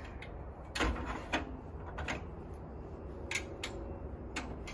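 Metal clicks and knocks from the folding aluminium entrance-step legs of a travel trailer being adjusted by hand: one sharper knock about a second in, then several lighter clicks.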